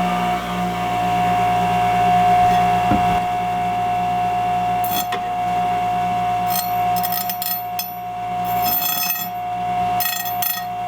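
Angle grinder running with a steady whine while lightly grinding the barbs off the cut end of a metal pipe. From about five seconds in, short scraping bursts come and go as the disc touches the pipe. The motor cuts off at the end.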